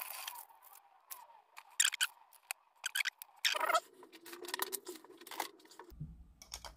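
Small clicks and taps of a plastic LED smart bulb being handled and fitted back together, with a brief scraping rustle about halfway. Near the end a low mains hum sets in abruptly as the bulb is connected to power.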